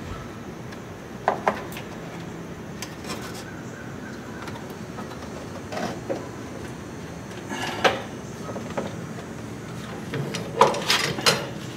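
Scattered clicks and knocks of hands working plastic and metal parts inside a Hummer H2's front fender well, with a louder cluster of clatter near the end, over a steady low background noise.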